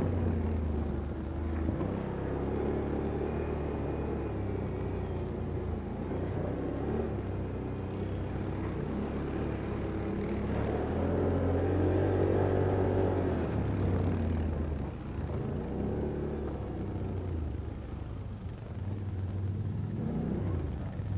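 ATV engine running under way, heard up close from the machine carrying the camera, its pitch rising and falling as the rider works the throttle; it climbs and grows loudest about halfway through, then eases off.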